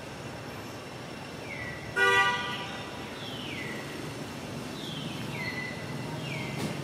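A single short vehicle horn toot about two seconds in, the loudest sound, among high whistles that fall in pitch and repeat several times.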